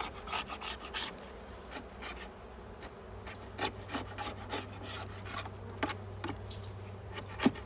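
Hive tool scraping propolis off the beehive in short, irregular scrapes and clicks, with honey bees buzzing around.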